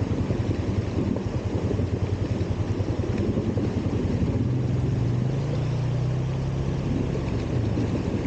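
Off-road vehicle engine running steadily; about halfway through its pitch rises and holds for a couple of seconds, then eases back near the end.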